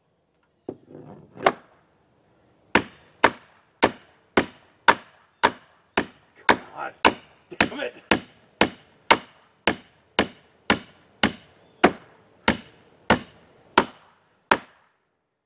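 Hammer driving nails into oak pallet-wood window trim: a steady run of sharp strikes, about two a second, starting a couple of seconds in and stopping near the end.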